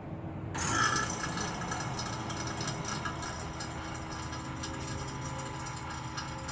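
An AC vacuum pump switches on about half a second in and runs steadily with a rattling buzz, evacuating the car's air-conditioning system.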